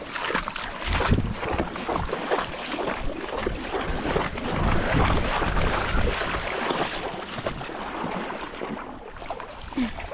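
Shallow river water splashing and rippling close to the microphone, with wind gusting on the microphone as irregular low rumbles.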